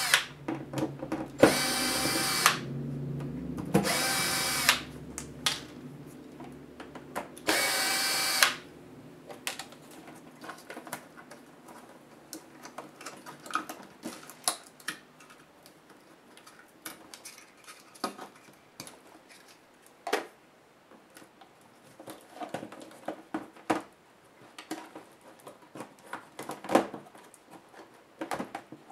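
Electric screwdriver whining in three short runs of about a second each, backing screws out of a laptop LCD panel's metal mounting brackets. After that, scattered light clicks and taps of the panel and brackets being handled.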